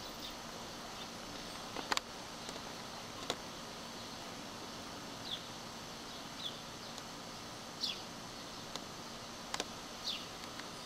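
A bird calling outdoors with short, falling chirps every second or two, over a steady hiss; a few sharp clicks are heard, the loudest about two seconds in.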